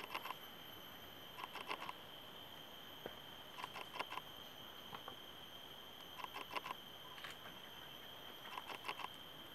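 Faint rainforest ambience: a steady high-pitched insect drone, with small clusters of quick ticks every second or two.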